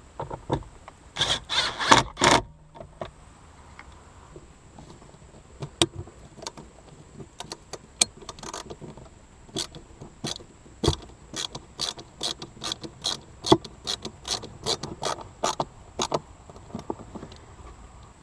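Hand work on a car's interior plastic parts around the cabin air filter: a short burst of clattering plastic clicks, then scattered clicks, then a run of regular sharp clicks about two a second.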